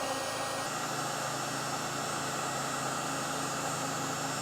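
Looft Lighter electric charcoal lighter running, its fan blowing superheated air in a steady airy hiss with a low hum, held against charcoal to light it.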